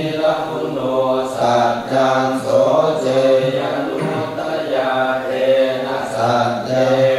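Male voices chanting Thai Buddhist verses in Pali, a steady, near-monotone recitation on a low pitch.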